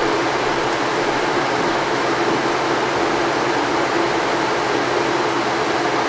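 Haier ESAQ406T window air conditioner's indoor blower fan running on high with the compressor off, a steady rush of air through the evaporator coil as the frosted coil defrosts.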